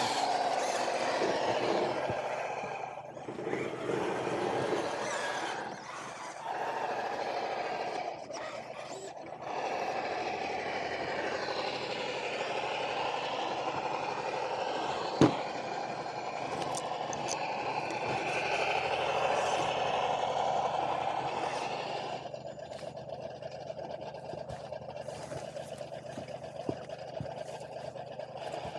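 Electric motor and gear drivetrain of an RC scale crawler whining as it is driven in stops and starts over the trail, its pitch rising and falling with the throttle, heard close up from its bonnet. A single sharp knock about halfway through.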